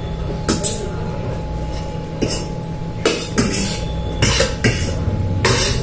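Short, breathy noises from two people eating spicy noodles, about seven in all, over a low steady hum.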